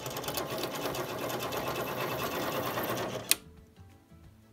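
Harbor Freight mini metal lathe running on a power-fed threading pass, motor and change-gear train driving the lead screw while the tool cuts threads in a wooden dowel: a steady, busy mechanical whir that stops abruptly with a click about three seconds in.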